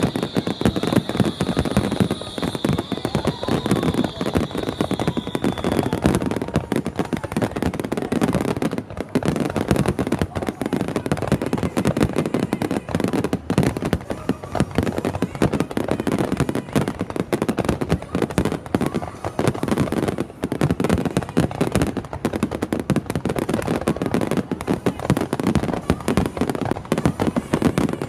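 Starmine fireworks barrage: a continuous rapid run of shell bursts and crackling, with a high steady tone through the first several seconds.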